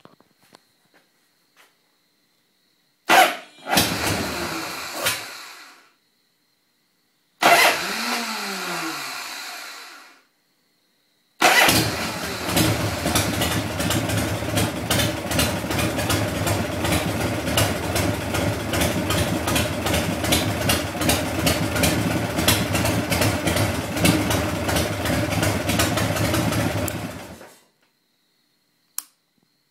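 Harley-Davidson Shovelhead V-twin being started with difficulty: two short attempts about 3 and 7 seconds in, each dying away over two to three seconds. About 11 seconds in it catches and runs steadily for about 16 seconds, then stops.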